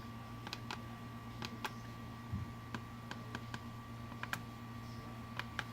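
Wall light switches being pressed one after another, about a dozen sharp irregular clicks, over a steady low electrical hum.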